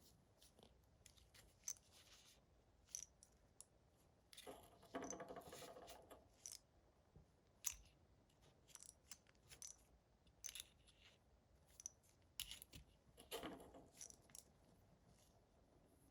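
Quiet handwork on a small aluminium petrol lighter: scattered light clicks and taps of small metal parts, with two short scraping or rubbing passes, about four seconds in and again near thirteen seconds.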